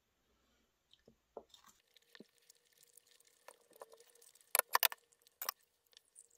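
A metal spoon scraping and clinking in a ceramic bowl while scooping rice, as faint scattered clicks that become a few sharp clinks about four and a half seconds in, with one more a second later.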